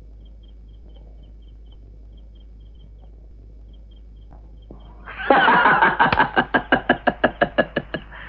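Faint insects chirping, then about five seconds in a man laughs loudly for some three seconds, a fast run of ha-ha pulses about six a second.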